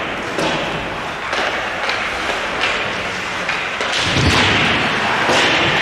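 Ice hockey play heard in a rink: skate blades scraping the ice under a series of sharp knocks from sticks and puck, with a heavier thud about four seconds in.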